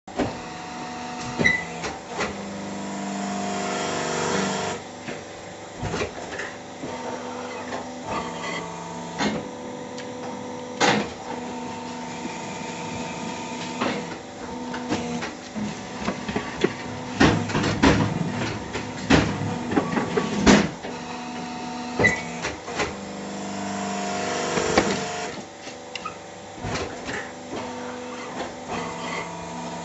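Hydraulic concrete block-making machine running through its pressing cycle: a steady motor-and-pump hum throughout, a louder droning stretch of a few seconds about a second in and again near 23 seconds, and many sharp metal clanks and knocks in between.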